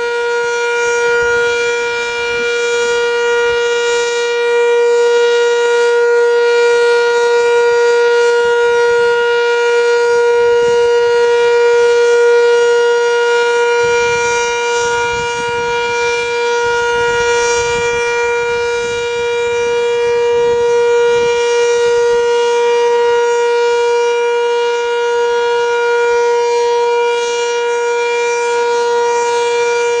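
Sentry 10V electromechanical outdoor warning siren sounding its weekly test: having wound up to full speed, it holds one steady, loud tone with slight swells in level.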